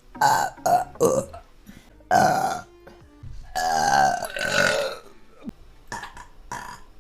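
A woman burping repeatedly: three short burps, a longer one about two seconds in, one long drawn-out burp around the middle, and two short ones near the end.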